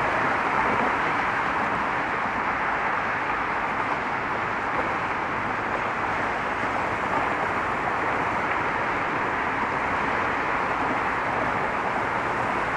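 Steady road traffic noise of many cars driving over the bridge roadway, an even wash of tyre and engine sound with no single vehicle standing out.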